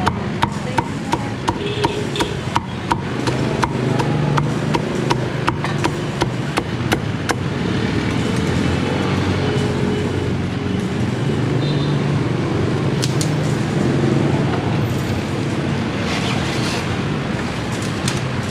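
Cleaver chopping crispy roast pork on a thick wooden chopping block: quick sharp strikes, about two or three a second, that stop about seven seconds in. A steady low background hum runs under them.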